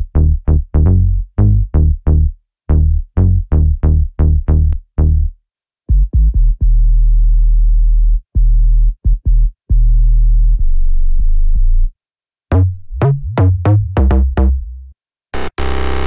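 u-he Hive 2 software synthesizer playing bass presets: a quick rhythmic run of short, decaying plucked bass notes, then after a brief gap long, deep 808-style boom bass notes with short hits between them. A few more short notes follow, and a gritty, distorted bass begins near the end.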